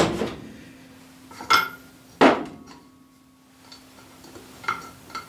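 Hammer blows on metal, three sharp strikes in the first two and a half seconds, one of them ringing briefly, then a few light clinks near the end: a new bearing being tapped home until it sits flush.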